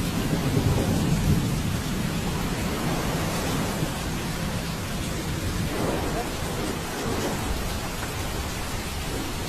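Rain falling steadily during a thunderstorm, with a low rumble of thunder that is strongest in the first couple of seconds and then dies down.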